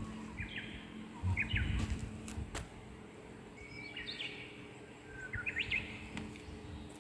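Small songbirds chirping in short, quick phrases, four times. Low thumps and a couple of sharp clicks in the first seconds.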